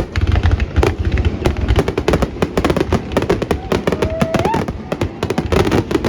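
Fireworks going off in a rapid, dense barrage of bangs and crackles over a continuous low rumble. A brief rising whistle sounds about four seconds in.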